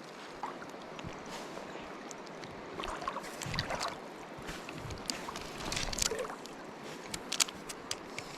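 Flowing river water rushing steadily around a wading angler, with a few louder splashing swells and scattered sharp clicks.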